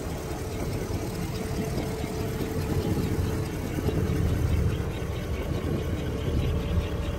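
Car engine idling: a low, uneven rumble with a steady hum over it.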